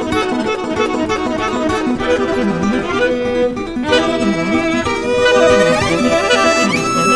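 A live acoustic quartet of tenor saxophone, fiddle, accordion and acoustic guitar playing a waltz, with the accordion prominent. Notes slide upward near the end.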